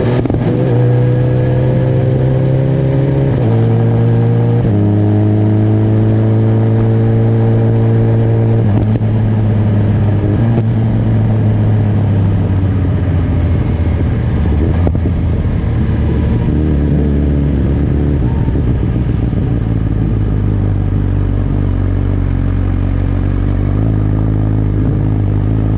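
BMW S1000RR's inline-four engine running at low, steady revs, holding one pitch for a few seconds at a time with steps in between. After about nine seconds it settles to a lower, near-idle rumble.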